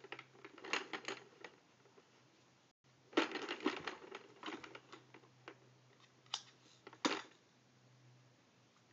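Plastic toys on a baby's activity jumper clattering and rattling as they are handled: irregular runs of clicks and clacks, then two single sharp clacks past the middle. A faint low steady hum lies underneath.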